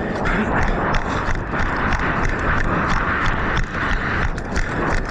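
Player running on foot: repeated footfalls under a loud, steady rushing noise of movement and air over the microphone.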